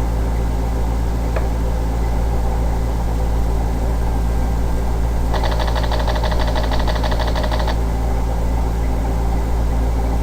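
Minigun sound effect: a rapid burst of automatic fire lasting about two seconds, starting about halfway through, over a steady low hum.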